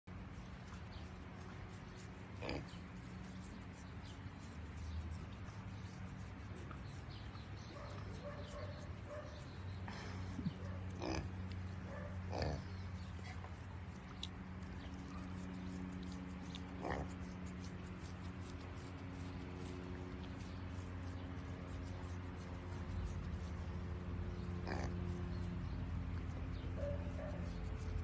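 Miniature piglets giving a handful of short grunts and squeaks, spread out, over a steady low drone.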